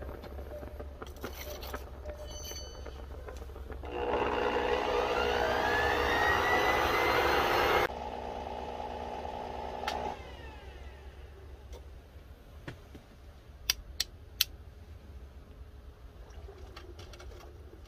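The coal forge's electric air blower runs up, its whine rising in pitch for about four seconds over a steady low rumble. Then it drops back abruptly and winds down about two seconds later. Three sharp clicks follow near the end.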